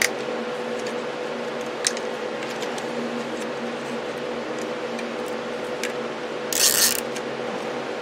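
A nylon zip tie being handled and pulled tight around a graphics card and case fans: scattered small plastic clicks, and a short ratcheting zip about six and a half seconds in, over a steady hum.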